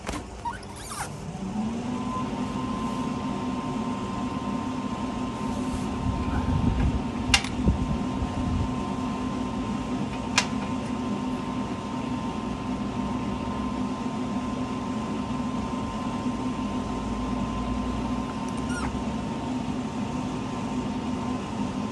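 A machine switched on, its motor spinning up over a second or two and then running with a steady hum. There are two sharp clicks, about 7 and 10 seconds in.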